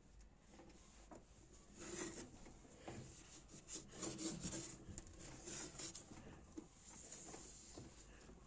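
Faint, irregular rubbing and scraping with a few light clicks, busiest from about two to six seconds in: objects being handled and rubbed.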